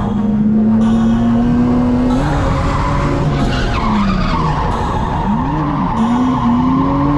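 Lexus IS300's inline-six engine at high revs during a drift, heard from inside the cabin, with tires squealing and skidding. The engine note holds steady, then rises and falls several times in the middle as the throttle is worked.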